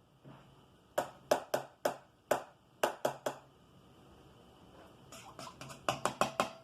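Sharp clicking taps of a small utensil against a container while onion powder is measured out by the teaspoon, in two quick runs of several taps each, about four a second.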